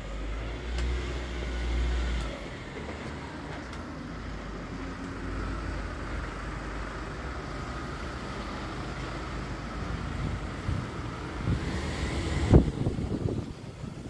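Road traffic going by: a steady engine and tyre hum that swells toward the end, over a low rumble that is strongest in the first two seconds. One sharp thump near the end is the loudest moment.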